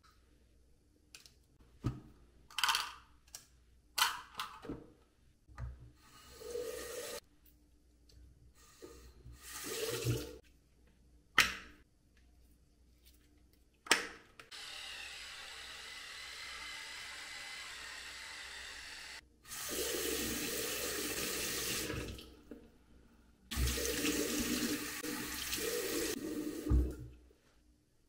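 Small clicks and knocks from plastic things being handled at a washbasin. Then a bathroom tap runs into the basin in three spells, the last two louder, with hands washing under the water.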